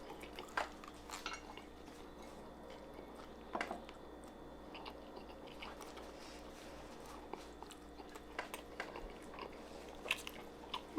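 A person chewing food close to the microphone, with scattered short wet mouth clicks and smacks every second or two.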